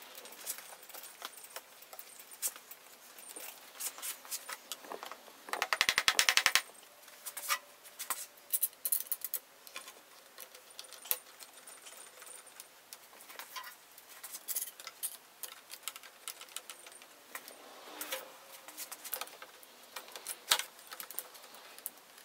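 Bar clamps being fitted and tightened across a glued-up oak chair back: scattered clicks and knocks of metal clamp jaws and handles against the wood, with a quick rattling run of clicks about six seconds in.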